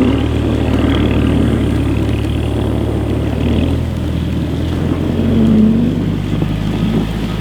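BMW 335i's turbocharged straight-six engine running under throttle as the rear-drive car is driven in snow, the revs rising briefly about five and a half seconds in.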